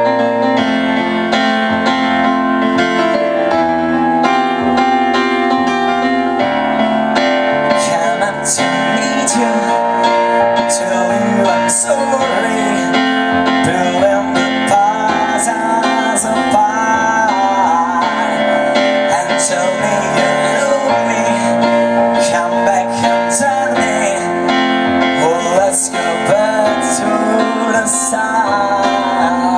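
Live band playing: a Nord stage piano sustains chords, drums with cymbal hits come in about eight seconds in, and a male voice sings over it from about twelve seconds in.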